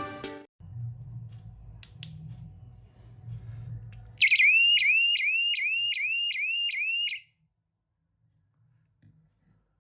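A homemade door security alarm circuit's electronic siren going off: a rapid series of short rising chirps, about three a second, that starts suddenly about four seconds in, runs for about three seconds and cuts off. Before it, a couple of faint clicks over a low hum.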